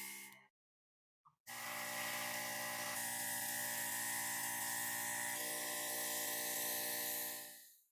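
Small high-speed electric power tool motor whining steadily. It winds down about half a second in, starts again a second later, runs evenly, and winds down again near the end.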